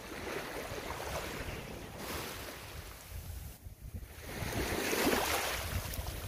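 Small waves of a calm sea washing and lapping at the shore, swelling and fading, with wind rumbling on the microphone.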